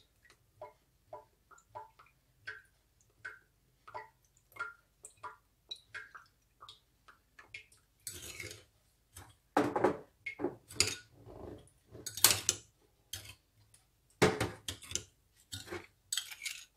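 Fish sauce dripping from a bottle's spout into a metal spoon over a ceramic bowl, in small plinks about two a second. From about eight seconds in, the metal spoon stirs the sauce and clinks and scrapes against the bowl.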